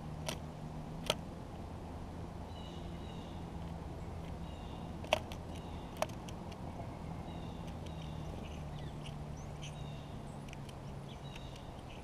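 Blue jay pecking at sunflower seed in a wooden log feeder close to the microphone: four sharp taps of the beak on seed and wood, the loudest about five seconds in. Short bird calls repeat in the background about once a second over a low steady hum.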